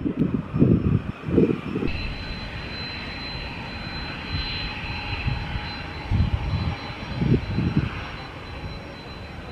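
Cessna 560 Citation business jet's twin turbofan engines running as it lands, a steady rushing noise with a thin high whine that comes in about two seconds in and holds. Low gusty rumbles rise and fall near the start and again around six to eight seconds in.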